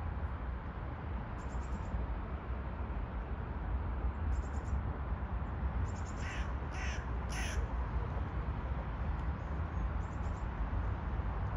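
A crow cawing three times in quick succession, over a steady low rumble.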